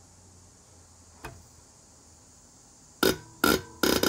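Land Rover 2.25 diesel injector nozzle on a hand-lever pop tester, popping open in three short buzzing bursts near the end as the pump lever is worked: the chatter of the nozzle opening at its set pressure and atomizing fuel into a spray. A single click comes about a second in.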